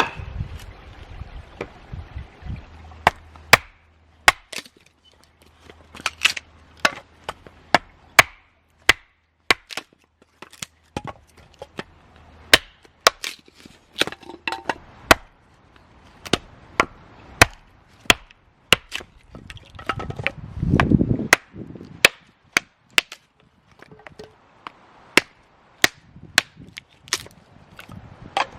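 Repeated sharp chopping strikes on wood, irregular, about one or two a second, with a short rustle about two-thirds of the way through.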